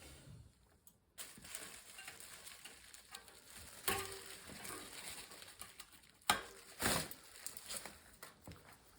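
Rustling and crackling handling noises, with two sharp knocks about four and six seconds in.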